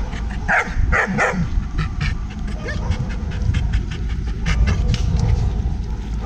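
Muzzled German Shepherd barking and yelping: a few sharp barks in the first second and a half, then fainter short yelps. The dog is worked up, with its hackles raised, in an aggression case.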